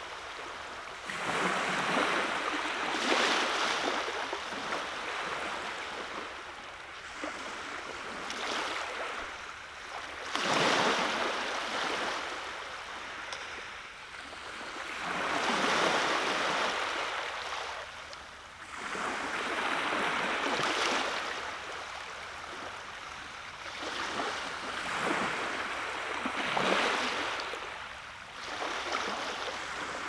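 Small Baltic Sea waves breaking softly on a sandy beach. The surf swells and fades, with a new wave washing in every few seconds.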